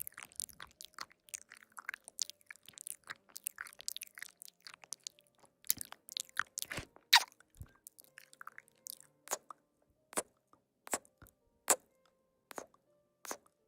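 Close-miked eating: food being bitten, crunched and chewed. A dense run of crisp crunches gives way to single sharp crunches about once a second in the second half.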